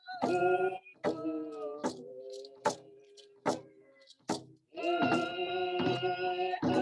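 Group of voices singing together to a hand drum, the drum struck steadily about once every 0.8 seconds. The singing falls away briefly about halfway through while the drum keeps time, then comes back in.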